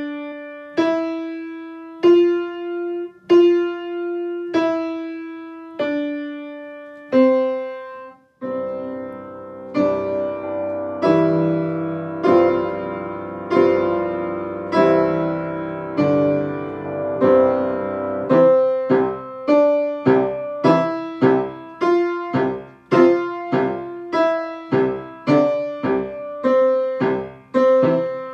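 Piano notes played slowly one at a time, stepping up C-D-E-F and back down in the beginner's five-finger exercise, each note left to ring. About 8 seconds in, fuller piano music with held chords and a bass line takes over, and from about 18 seconds in it moves to quicker notes.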